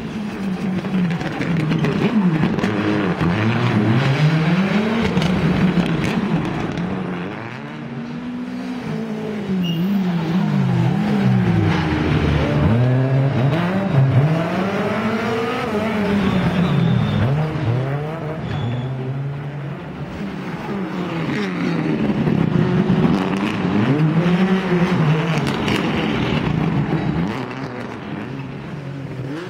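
Rally car engines racing on a circuit, revving high and dropping again and again through gear changes and braking, getting louder and fading as the cars come close and go away.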